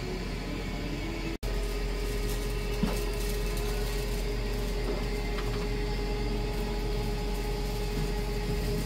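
Steady hum of running machinery with a faint held tone. The sound drops out for an instant about a second and a half in, then carries on unchanged.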